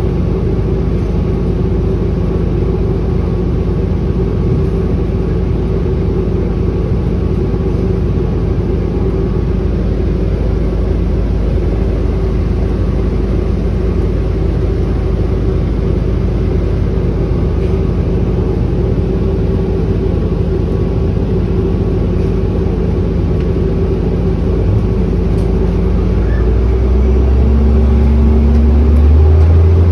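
Orion hybrid-electric city bus heard from inside the cabin while driving: a steady low rumble with a constant hum over it. Near the end the sound grows louder and a tone rises in pitch as the bus speeds up.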